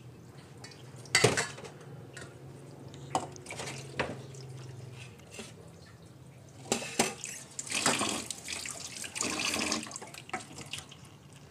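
Water splashing in a stainless steel kitchen sink as onions and chillies are rinsed in a metal bowl, with a few sharp knocks of the bowl, the loudest about a second in. From about seven seconds in there is a longer run of pouring and splashing as the rinse water is tipped out of the bowl.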